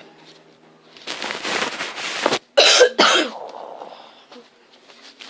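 A child coughing and hacking: a long raspy rasp, then two sharp coughs close together about two and a half seconds in, in play as a cat bringing up a hairball.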